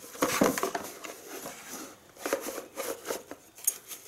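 Handling noise as a compact gas stove with metal pot supports is pulled out of its hard plastic case: a run of short clicks, scrapes and light knocks of metal against plastic, with a cluster of clicks in the second half.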